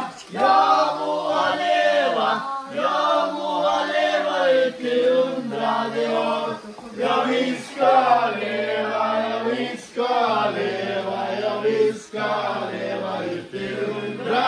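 Voices chanting a drawn-out, sung melody in phrases about two seconds long, each broken off by a short pause.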